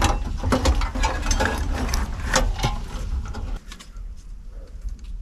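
Old wiring being pulled and cut out from behind a car's dashboard: a dense run of rustling, scraping and clicking of wires and plastic connectors. It eases off to a few scattered clicks after about three and a half seconds.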